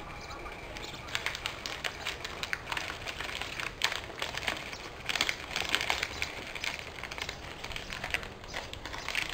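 Plastic snack wrapper crinkling in the hands, a run of irregular small crackles and clicks.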